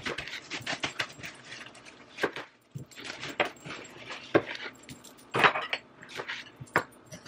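Kitchen knife chopping vegetables on a cutting board: a quick run of chops at first, then scattered knocks and clicks of the knife and utensils.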